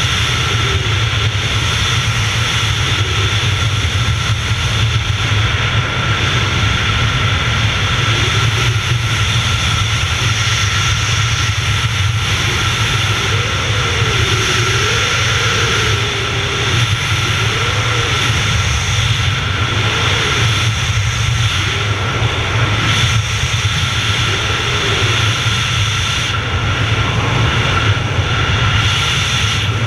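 Steady wind roar on the camera microphone during wingsuit flight, with a faint wavering tone now and then in the middle.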